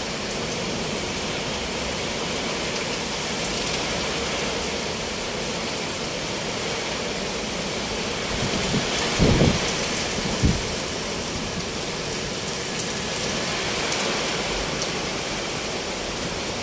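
Steady heavy rain falling. About nine seconds in there is a short low rumble, and a second, briefer one follows about a second later, typical of thunder in a thunderstorm.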